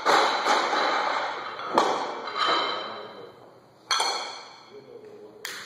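Barbell loaded with rubber bumper plates landing on the floor after being dropped from overhead, bouncing with a few thuds while the steel bar rings and fades. About four seconds in, another ringing clank as the bar is handled, then a sharp click near the end.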